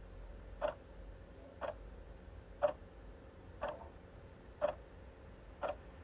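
Clock ticking, one even tick a second.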